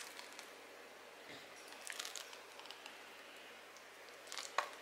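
Faint, soft scrapes and squelches of a silicone spatula working thick chickpea pâté in a plastic blender cup, a few short strokes about two seconds in and again near the end.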